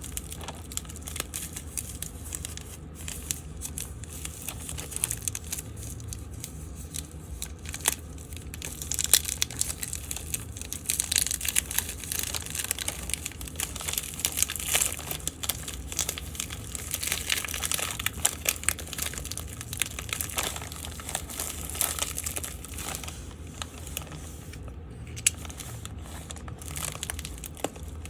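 Packaging being handled: crinkling and rustling broken by many small clicks and taps, busiest in the middle, over a faint steady low hum.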